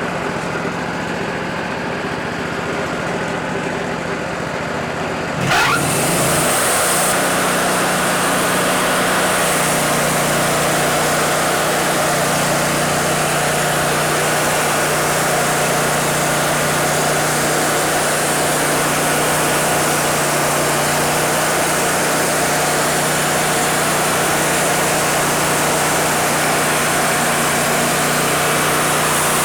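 Woodmizer LT40 band sawmill's engine idling, then revving up about five seconds in and running steadily at high speed, louder, with a steady hiss over the engine note.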